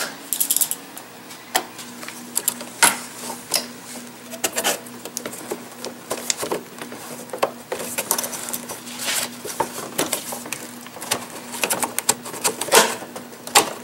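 Irregular clicks, taps and scrapes of a metal hand tool working a spring hose clamp and pulling a rubber air intake hose off a car engine's intake.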